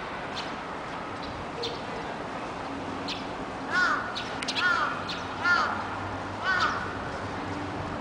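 A crow cawing four times, about a second apart, over short, high chirps from small birds perched in a bare tree.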